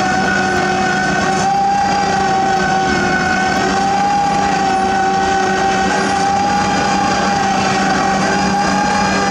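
Heavy diesel construction machinery running steadily: a low engine drone under a steady, high whine that holds its pitch.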